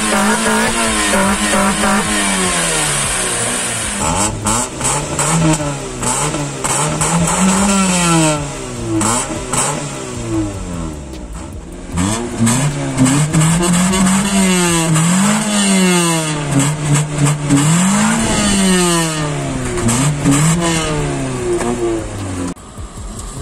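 Nissan Sentra B13's four-cylinder engine, fitted with a high-flow air filter, revved again and again while parked. Its pitch climbs and falls in short blips, with a brief lull about halfway.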